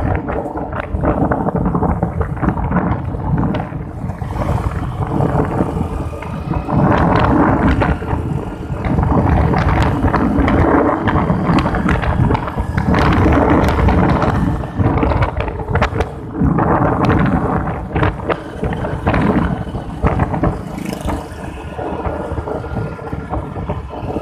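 Wind rushing over the microphone of a moving motorcycle, with the bike's engine and tyres running underneath on the wet road; the loudness swells and dips unevenly.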